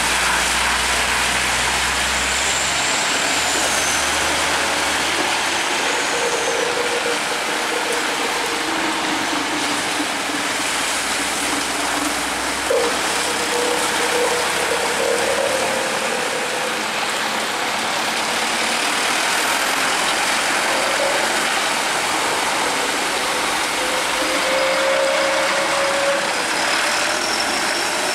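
Trucks passing on a wet road: tyres hissing through standing water over the diesel engines, a steady wash of noise. A low engine rumble from the nearest truck fades about three seconds in.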